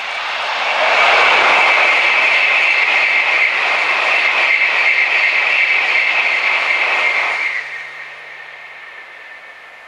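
500 series Shinkansen bullet train passing at speed: a rush of air and running noise with a steady high whine and regular pulsing as the cars go by. It swells to its loudest about a second in and falls away sharply near the end as the last car passes.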